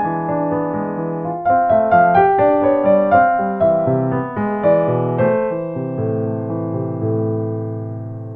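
Piano playing descending arpeggios, each chord broken into single notes from the top down, moving through E7, F, G and C back to A minor. The last A-minor arpeggio is held and fades away near the end.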